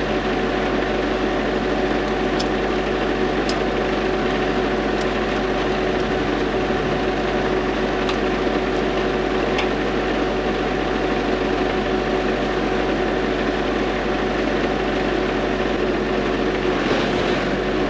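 An engine idling steadily, with a few faint clicks over it.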